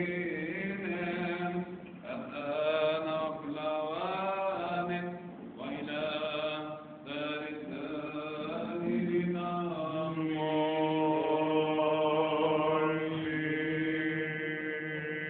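Orthodox liturgical chanting: a voice sings long, drawn-out melodic lines, with a steadily held note over the last few seconds.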